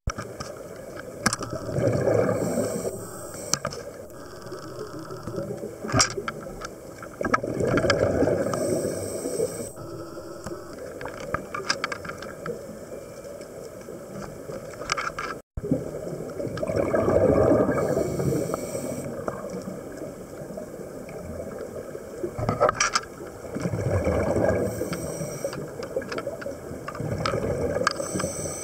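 A scuba diver breathing through a regulator underwater: about five slow breaths, each a bubbly exhalation paired with a short hiss of inhalation, with scattered small clicks between them.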